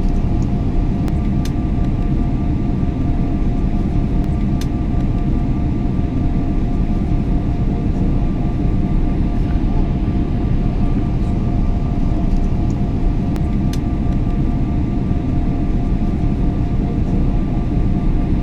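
Airliner cabin noise in cruise flight: a steady, even low rumble with a faint steady hum in two tones above it, and a few faint ticks.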